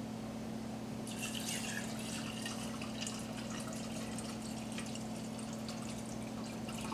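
Water trickling and dripping, with faint light ticks, over a steady low hum.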